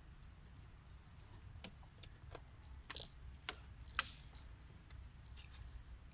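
A pig-tailed macaque biting and chewing a small green pod: a few scattered sharp crunchy clicks, the two loudest about three and four seconds in.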